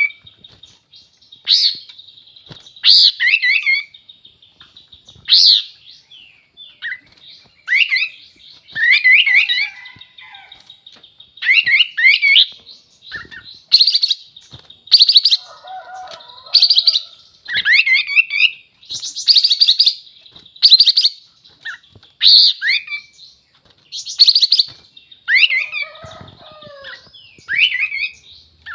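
A kapas tembak bulbul singing over and over: short, loud, bubbling phrases every second or two, many ending in a quick falling note.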